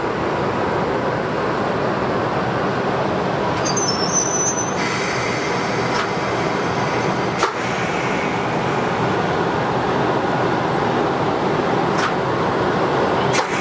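ED75 electric locomotive standing with its cooling blowers running: a steady, loud whir heard right beside its louvred side. A few sharp clicks cut through it, and short high chirps come about four seconds in.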